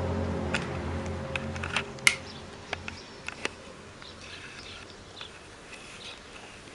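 An unexplained low drone heard from the sky: several steady tones sounding together, fading away over the first two to three seconds. Sharp clicks are scattered through the first few seconds, the loudest about two seconds in.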